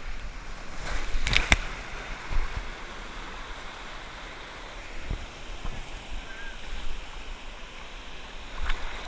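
Water rushing and splashing as a tube rider shoots out of a water slide into the splash pool, with a few sharp knocks about a second and a half in, then steady lapping and splashing of pool water.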